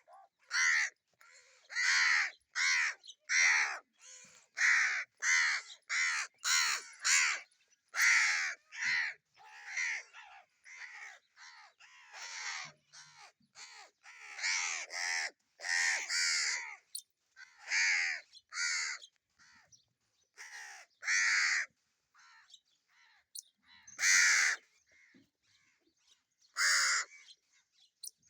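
Several crows cawing, a long run of short harsh caws at about two a second, some loud and close, others fainter, with a sparser stretch just past the middle.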